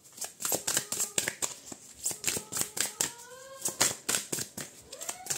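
Deck of oracle cards being shuffled by hand: a rapid, irregular run of card clicks and flaps.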